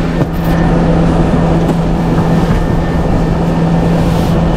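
Combine harvester running steadily: a constant machinery hum with one held low tone throughout.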